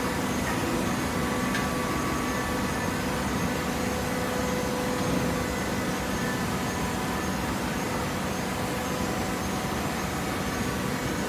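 Steady industrial machine hum from a horizontal hydraulic baler running, its motor and hydraulic pump making an even noise with a few faint steady tones.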